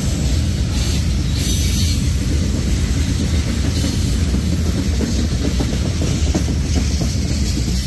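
Loaded CSX rock hopper cars of a gravel train rolling past: a steady, deep rumble of steel wheels on rail, with some clicking of wheels over rail joints in the second half.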